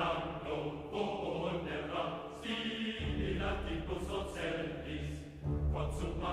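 Background music: a choir chanting over a low sustained accompaniment.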